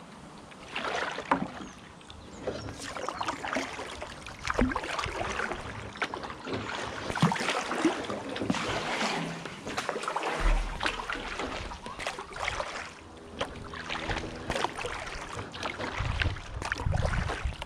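Kayak paddle strokes splashing and dripping in calm river water, with water slapping against the hull. Wind rumbles on the microphone near the end.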